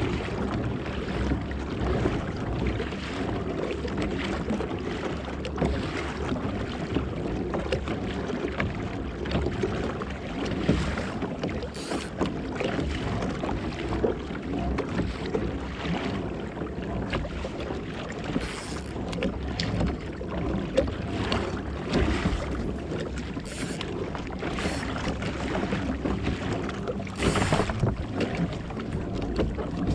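Water slapping and swishing against a fishing kayak's hull on choppy sea, with short louder splashes every few seconds and wind rumbling on the microphone.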